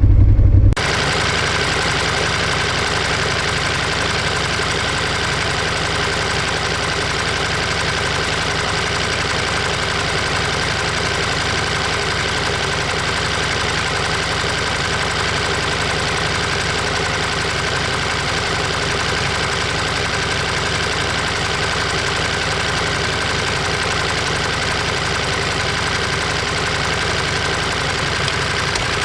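Ducati Monster 1200S's 1198 cc Testastretta L-twin engine running at a steady speed, picked up by a microphone mounted beside the engine rather than at the exhaust. It starts abruptly about a second in.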